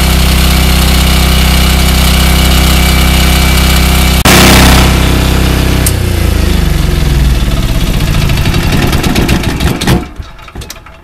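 Portable diesel generator running steadily, then switched off with the key: a brief loud burst of noise about four seconds in, after which the engine winds down, its pitch falling, and stops about ten seconds in.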